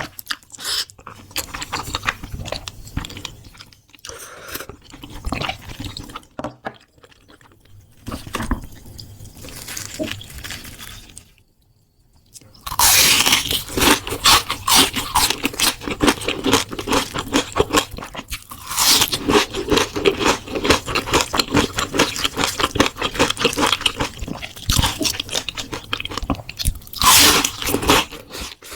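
Close-miked eating: quieter chewing at first, a short pause, then from about halfway loud, rapid crunching as crispy battered fried jumbo shrimp is bitten and chewed.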